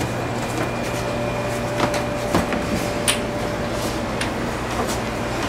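A few short knocks as someone climbs the wooden ladder of a homemade loft bed, over a steady room hum.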